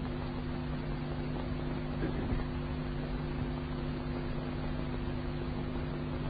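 Steady hiss with a low electrical hum from an old recording's background noise, heard during a pause in the Quran recitation.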